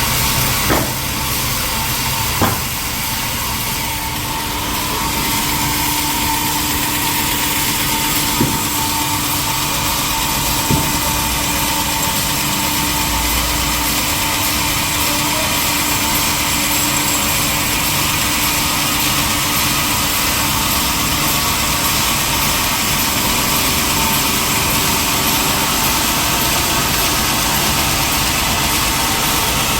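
Sawmill machinery running steadily, a dense mechanical noise with a faint whine in it, and a few sharp knocks in the first ten seconds.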